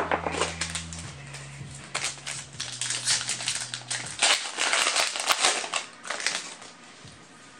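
Yu-Gi-Oh trading cards handled and flipped through by hand: a fast, irregular run of crisp clicks and rustles, busiest in the middle, with a sharp snap right at the start.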